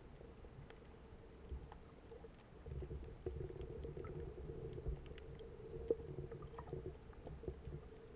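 Muffled underwater sound picked up by a submerged camera: low rumbling water movement that grows louder a few seconds in, with faint scattered clicks and crackles.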